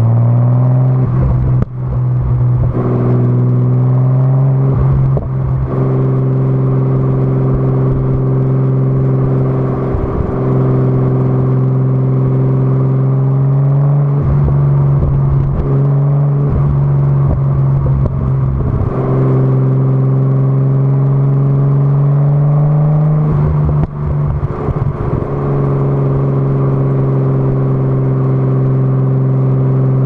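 Exhaust of an R33 Nissan Skyline's RB25DET turbocharged straight-six, heard at the tailpipe while driving: a loud, steady drone that rises and falls gently with the throttle. It is broken several times by short crackly patches where the pitch shifts.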